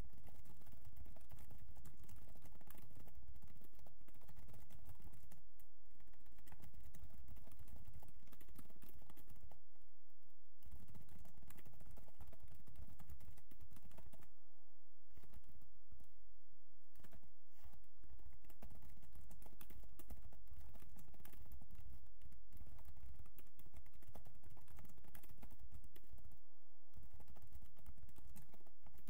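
Typing on a computer keyboard: quick runs of key clicks broken by a few brief pauses.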